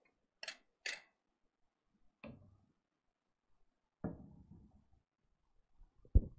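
Handling noises: two sharp clicks about half a second apart, softer knocks around two and four seconds in, and a loud, short low thump near the end.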